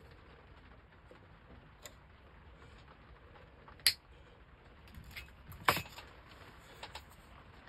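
Small hard objects such as tools and thin wooden pieces being handled on a workbench: a handful of sharp clicks and taps, the two loudest about four and six seconds in.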